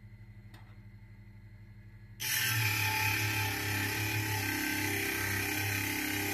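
Mini bench lathe's electric motor running at speed, a steady dense whir over a low hum, switching on abruptly about two seconds in; before that only a faint low hum.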